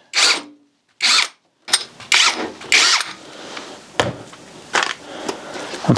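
Cordless drill run in about five short bursts, driving small Phillips-head screws into a wooden strip, followed by a few clicks of handling.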